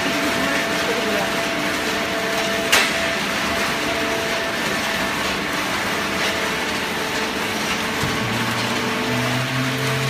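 Horizontal hydraulic paper baler running: a steady machine hum with several held tones, and a single sharp knock about three seconds in. A lower hum joins near the end.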